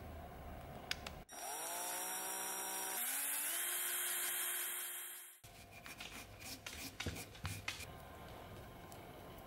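A small power drill spinning a stirring rod in a plastic cup of two-part epoxy. It spins up about a second in, steps up to a higher speed partway through, and stops about four seconds later. Light clicks and taps follow.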